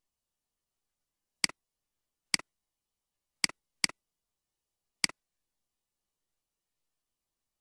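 Five computer mouse-button clicks, each a sharp click with a softer tick right after as the button springs back; the third and fourth come close together.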